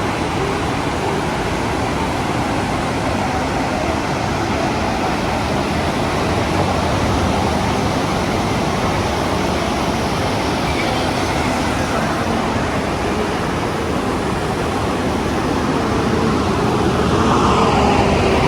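Waterfall, falling water rushing steadily. In the last couple of seconds a second sound, with a pitch that falls, grows over the rush.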